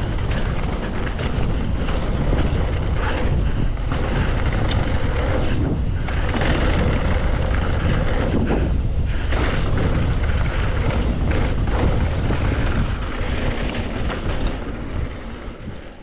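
Mountain bike ridden fast down a dirt trail: wind buffets the microphone in a steady low rumble over the hiss and rattle of tyres on the trail. The noise eases off near the end as the bike slows.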